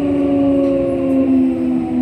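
Electric train's traction motors and inverter whining as a train slows under braking: several tones gliding slowly down in pitch together over a low rumble.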